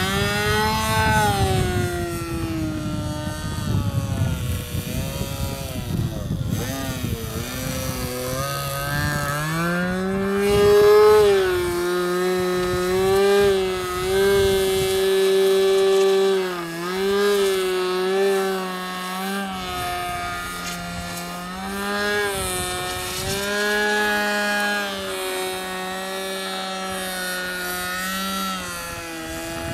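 The 10 cc nitro glow engine of an RC plane in flight, buzzing continuously. Its pitch swings up and down as the throttle changes and the plane passes, and it holds steady for stretches at high power.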